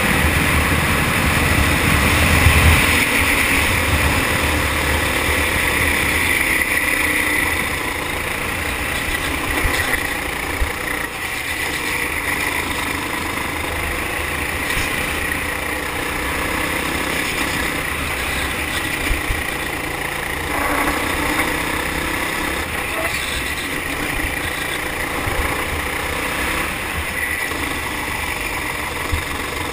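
Four-stroke kart engine running at racing speed, heard from a camera mounted on the kart, with road noise. It is loudest in the first few seconds, under full throttle on a straight.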